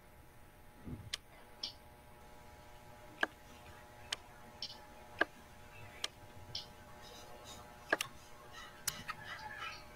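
Computer mouse clicking: about a dozen sharp clicks at irregular intervals, over a faint steady hum.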